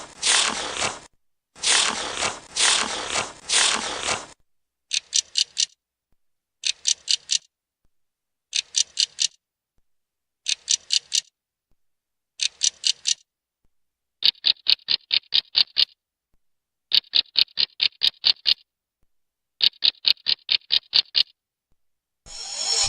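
A series of separate mechanical sound effects: a few rasping scrape strokes, then five short bursts of rapid, high-pitched clicking, then three longer runs of sharp, ringing ratchet-like clicks. A new scraping sound begins near the end.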